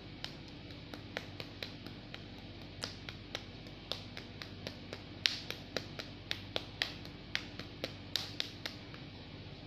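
Palms patting together, coated with skincare serum: a run of light, sharp slaps, irregular, about three a second.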